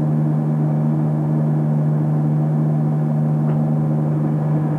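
Steady low hum made of a strong low tone and several fainter steady tones above it, unchanging throughout.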